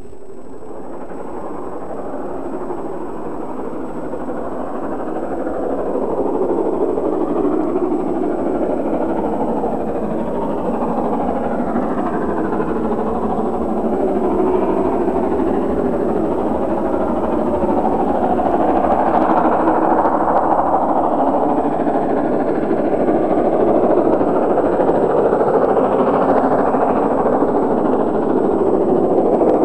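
LMS Princess Royal class four-cylinder Pacific No. 6201 Princess Elizabeth working a train under steam, a steady rushing exhaust and train noise that grows louder as it approaches.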